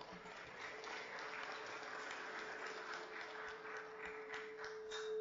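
Faint applause from an audience, a steady patter of many hands clapping. A single steady tone sounds beneath it and grows louder near the end.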